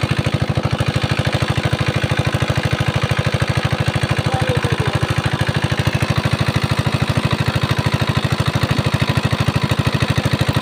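Small single-cylinder diesel engine running steadily under load as it drives an irrigation water pump, with a rapid, even chug.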